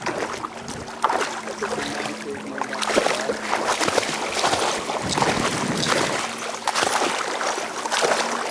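Irregular splashing and sloshing of water, with many small crackles and a faint steady hum underneath.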